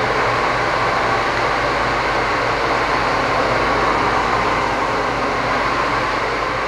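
Steady rushing noise of a large dyno-cell cooling fan, with a low hum underneath.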